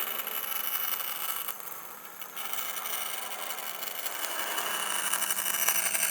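Bandsaw running and cutting through plywood fed by hand, a steady machine noise that dips briefly about two seconds in and then grows louder.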